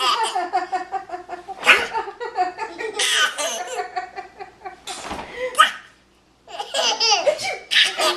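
Hearty laughter in repeated bursts, broken by a few sharp, loud outbursts, with a brief silence about six seconds in.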